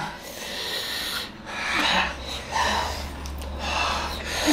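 People breathing hard and hissing air in and out through open mouths, a string of short breaths, from the burn of an extremely hot chili chip.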